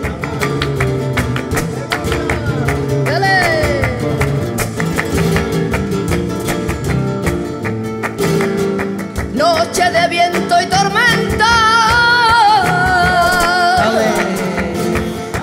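Live flamenco tangos: acoustic guitars strumming and picking over a steady rhythm of palmas (hand clapping) and percussion. In the second half a long, wavering sung melisma comes in over the accompaniment.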